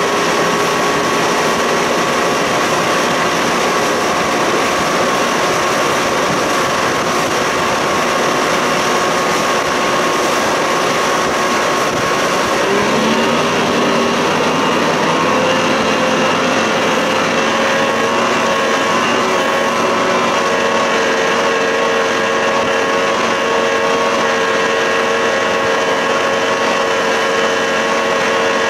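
1992 Johnson 60 hp two-stroke outboard running with a heavily loaded boat under way; about halfway through it is throttled up, its pitch rising over a couple of seconds and then holding steady at full speed.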